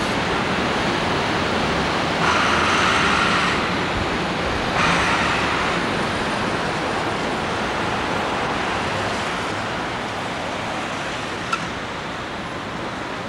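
Steady roar of city street traffic heard from high above, with two louder rushes of passing vehicles about two and five seconds in and a short tick near the end.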